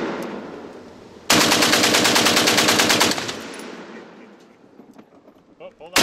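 Water-cooled, belt-fed machine gun firing one burst of about two seconds, beginning a little over a second in. The echo rolls away across the range after the burst, and the next burst starts at the very end.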